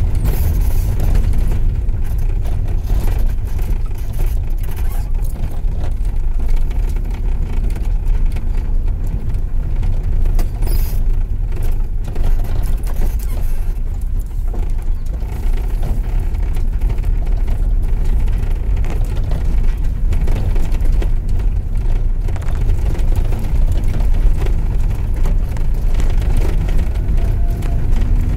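Car driving over a rough, patched tarmac road, heard inside the cabin: a steady low rumble of tyres and engine with frequent small knocks and rattles from the bumps.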